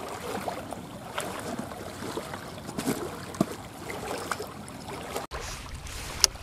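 Small waves lapping on a rocky lakeshore, with a light wash of wind and a few scattered clicks and knocks. About five seconds in the sound cuts abruptly to a closer, rougher low rumble.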